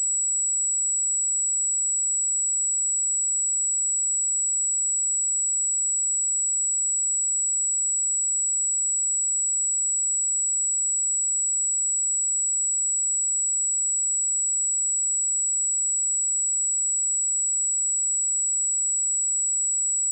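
A steady, unbroken 7824 Hz sine-wave test tone: one pure high-pitched tone, constant in pitch and loudness.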